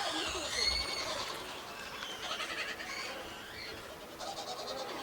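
Monkeys calling with several high-pitched squeals, some gliding in pitch and some in quick stuttering pulses.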